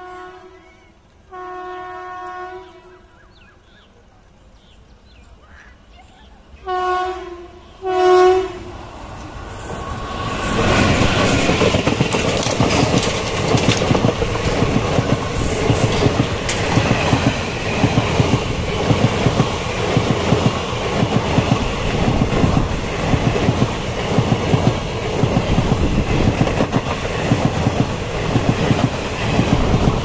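Express train's horn blown four times: a short blast, a longer one of about a second and a half, then two short blasts about 7 and 8 seconds in. From about 10 seconds in the train passes close by at speed, a loud rush with the rapid clickety-clack of coach wheels over the rail joints.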